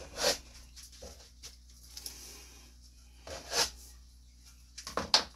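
Plastic paint cups being flipped and set down upside down on a canvas: three short handling noises, about a second in, about three and a half seconds in, and a quick clatter of clicks near the end.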